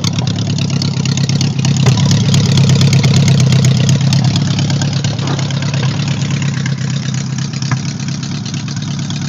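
A 1978 Honda Gold Wing's water-cooled flat-four engine idling steadily through aftermarket pipes. The owner says it has a weird misfire on the right side.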